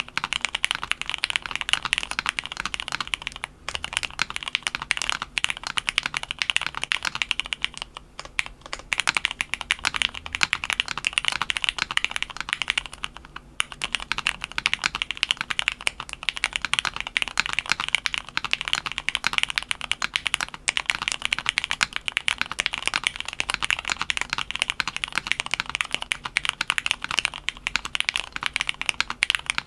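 Fast continuous typing on a custom mechanical keyboard: lubed linear Cherry MX Black Ultraglide switches with heavier springs in an aluminium plate, foam-filled case, keystrokes clacking through cylindrical keycaps, with a few short pauses along the way.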